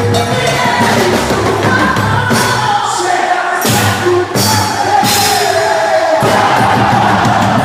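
Festa junina music with a singer holding a wavering melody over a steady bass beat and repeated high percussion, with crowd noise underneath.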